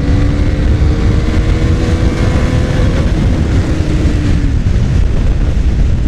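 KTM Duke 390's single-cylinder engine pulling hard in fourth gear, its note rising slowly as the bike accelerates, over heavy wind rush on the microphone. The engine note fades into the wind noise about four and a half seconds in.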